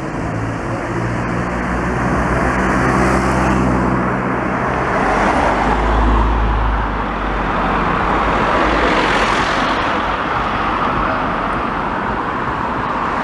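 Road traffic passing close by: the steady noise of motor vehicles, with one engine's hum in the first few seconds and a heavy low rumble about six seconds in.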